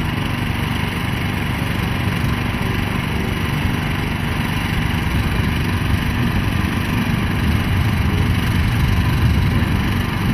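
Engines of several off-road pickup trucks racing across dirt, a steady, mixed engine noise.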